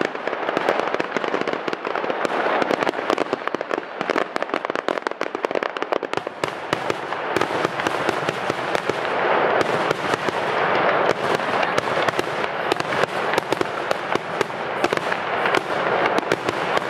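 Aerial fireworks show: a dense, unbroken barrage of crackling pops from many bursts at once.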